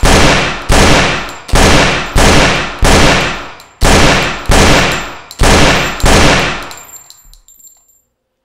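Pistol gunshots: nine single shots in about six seconds, each followed by a long echoing decay, with a faint high ringing that fades out after the last shot.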